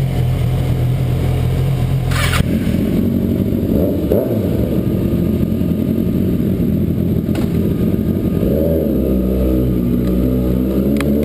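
Kawasaki Ninja ZX-6R's 600cc inline-four through a Competition Werkes aftermarket exhaust, running steadily at first, then the revs rising and falling as the bike is ridden, climbing again near the end. A brief rattle about two seconds in.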